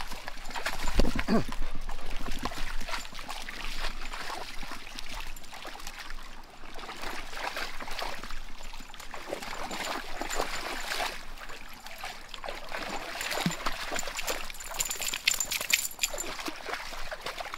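Shallow creek water trickling and running over rocks while dogs wade through it, their legs splashing irregularly in the water. A low thump comes about a second in.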